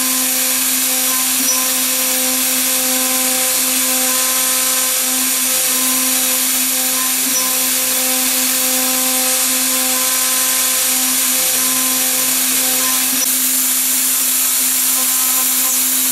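CNC milling machine spindle running at a steady speed, a constant high whine over loud hiss with no change in pitch.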